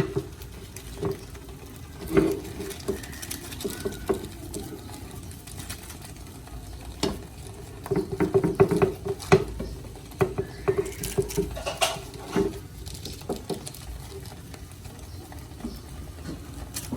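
Scattered light taps and clicks of a utensil against a pan as cake batter is spread in it, with a busy run of taps about eight to nine and a half seconds in.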